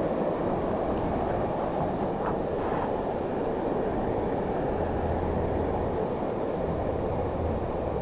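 Steady rushing of water from the pool and its rock waterfall, heard from a camera at the waterline, with a faint low hum joining about halfway through.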